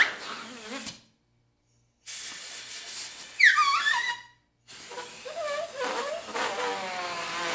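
Compressed air hissing from a grip-installation nozzle as a rubber golf grip is blown off the shaft and back on. The hiss comes in two spells, from about two seconds in and again from about five seconds, with quick squeals around three and a half seconds as the grip slides.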